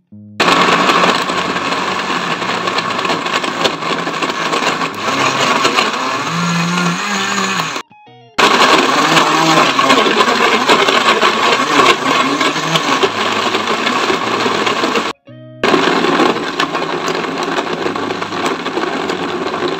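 Countertop blender running, grinding frozen strawberries with yogurt and dates into a smooth purée. It runs in three stretches, stopping briefly twice.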